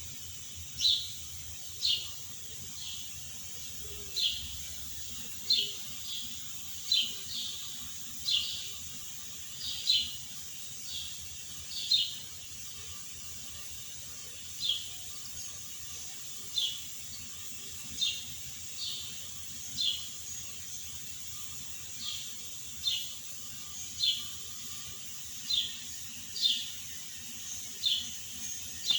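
Two sleeping pet dogs snoring as short, high-pitched whistling squeaks, roughly one every one to two seconds, some louder than others.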